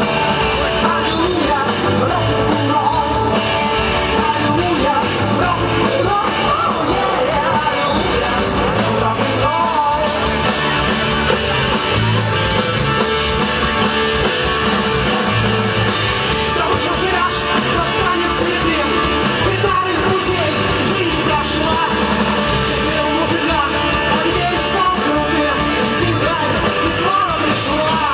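Rock song played by a band with singing, loud and continuous, over a steady driving bass beat.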